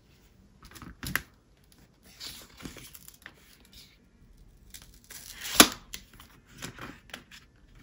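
Packaging being torn and crinkled open by hand in short scratchy bursts, with a sharp snap about five and a half seconds in and a smaller one about a second in.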